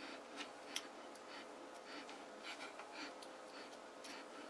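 Faint, irregular small clicks and scratches as fingers pry apart a small rotary potentiometer's metal housing, over a faint steady hum.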